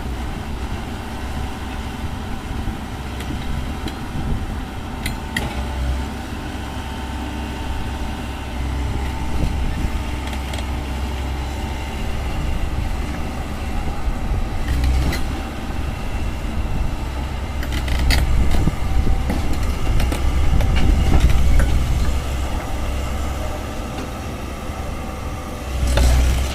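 Excavator's diesel engine running with a deep, steady rumble and a few sharp metallic clanks, growing louder for a few seconds past the middle.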